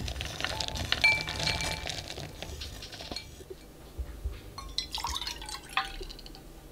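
Pieces of chopped milk chocolate clattering into a glass bowl, the glass giving a short ring. About four seconds in, milk is poured from a small cup into an enamel milk pan.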